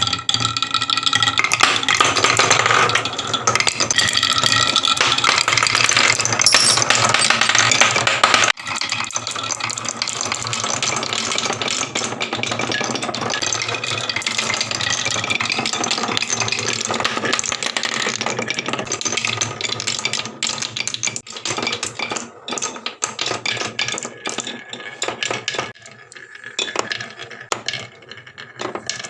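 Marbles rolling and clattering down a HABA wooden marble run, a dense, continuous rattle of many small clicks. The rattle is loudest through the first eight seconds, drops suddenly, runs on steadily and thins to scattered clicks near the end.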